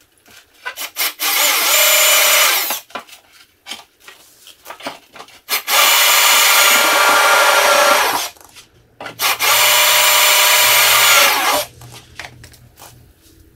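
Power drill running in three spells of about two seconds each, spinning up and winding down each time, with clicks and knocks between, as screws are driven while the dash trim is refitted.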